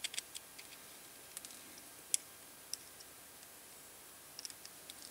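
Faint, scattered small clicks and ticks of a small screwdriver working screws out of a plastic tire pressure gauge housing.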